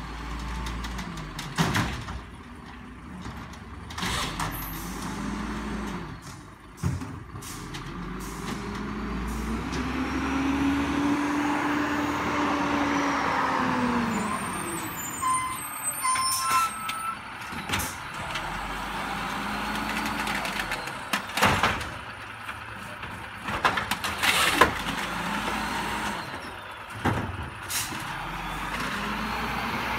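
Automated side-loader garbage truck working the curb: its engine revs up and falls back in long swells as it moves and runs the lifting arm, with sharp hisses and bangs at intervals from the air brakes and the arm handling the carts.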